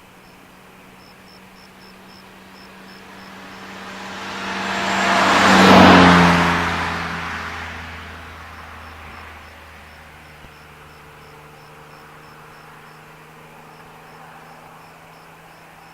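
A single car passing by: its engine and tyre noise swell over a few seconds, peak about six seconds in, then fade away, the engine pitch dropping as it goes past. Crickets chirp faintly in the background.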